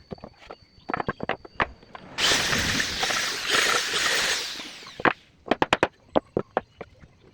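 A woodworking power tool runs for about three seconds and then winds down, between bursts of sharp wooden knocks and taps.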